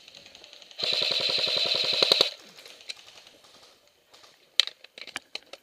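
Airsoft gun firing one full-auto burst of about fifteen rapid shots, roughly ten a second, for about a second and a half. A few sharp, irregular cracks follow near the end.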